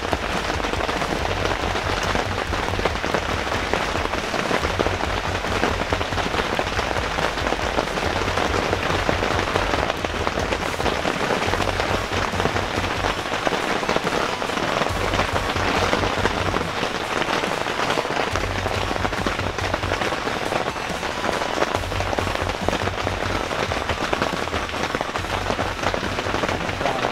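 Heavy rain falling, a dense steady hiss, with a low rumble coming and going underneath.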